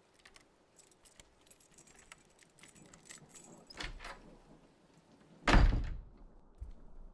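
A bunch of keys jangling and clinking for about three seconds, a sharper click about four seconds in, then a loud heavy thump at about five and a half seconds.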